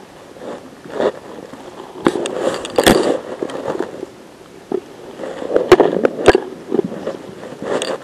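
Footsteps crunching and scraping over debris on an abandoned auditorium floor, with clothing and gear rustle; the densest crunching comes about two to three seconds in, and two sharp clicks or knocks stand out about six seconds in.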